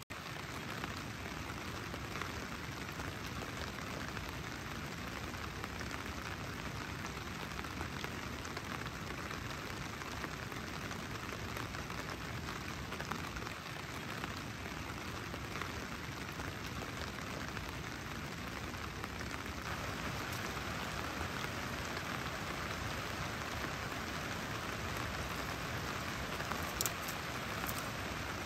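Steady rain falling, a continuous even hiss that grows a little louder in the last third, with a few sharp snaps near the end.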